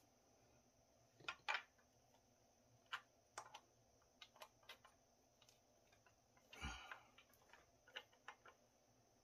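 Faint, sparse clicks and small taps of a screwdriver and hands working on the bar and chain of an Echo CS-4310SX chainsaw, with one louder clunk about six and a half seconds in.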